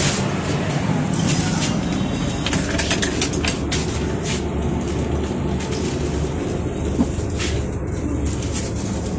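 Inside an LHB passenger coach of a moving train: a steady rumble of the running gear, with short clicks and rattles scattered through it.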